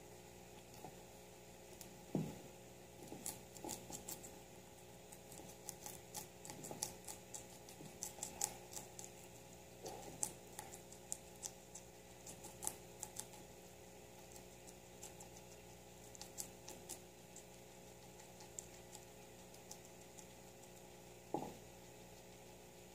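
Guinea pig chewing leafy greens: quick, irregular crunchy clicks, thickest in the first half and thinning out later, with a dull knock near the start and another near the end.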